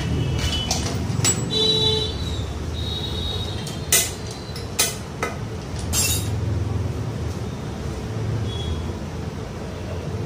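A few sharp metallic clinks as engine parts are handled and set down during bearing fitting on a Royal Enfield Bullet crankcase, the loudest about four, five and six seconds in, with short high squeaks in the first few seconds over a steady low background rumble.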